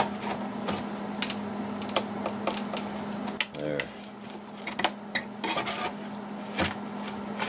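A small steel pry bar clicking and scraping against a nail head and dry wood, scattered irregular clicks and knocks as a nail is pried up out of a wooden clock case board. A low steady hum runs underneath.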